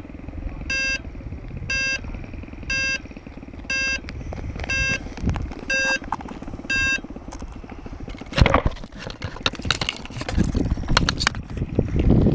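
Short electronic beeps, about one a second, from the crashed Blade 350 QX2 quadcopter, over a steady low rumble. The beeps stop about seven seconds in and give way to clicks and knocks as the wreck is picked up and handled.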